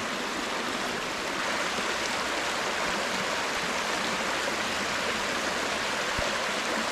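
Waterfall on a small brook: water cascading with a steady, even rush of noise.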